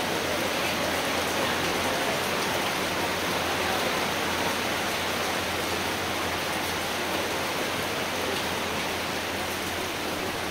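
Strong rain falling steadily: an even, dense hiss with no let-up, easing very slightly near the end.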